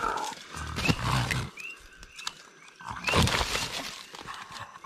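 A bow-shot feral pig lying wounded on its side gives low groans, about a second in and again louder around three seconds in: a dying animal not yet dead. Short rising chirps of coqui frogs sound behind it.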